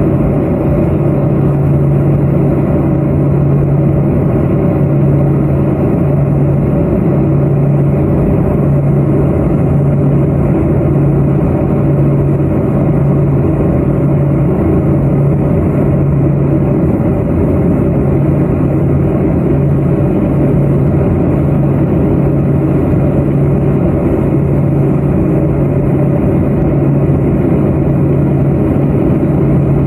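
Twin turboprop engines and propellers of an L-410 Turbolet running steadily, a loud even drone with a low propeller hum that throbs in a slow beat.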